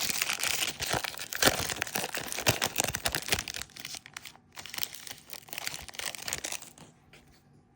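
Foil trading-card pack being torn open and crinkled by hand, a dense crackling with sharp snaps that thins out about four seconds in and dies away near the end.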